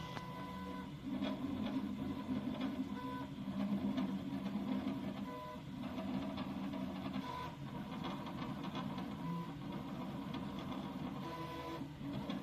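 A running machine rattling steadily, with short faint tones coming and going over it.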